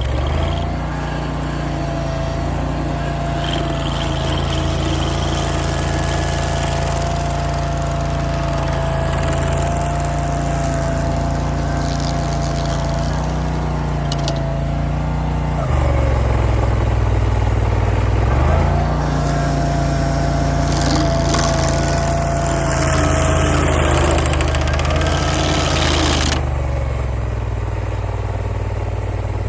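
Barreto SG3630 stump grinder's engine running at a steady speed while grinding a stump. Its pitch sags briefly under load at about 16 and again at 18 seconds in, and a rougher hiss of grinding rises from about 19 to 26 seconds in.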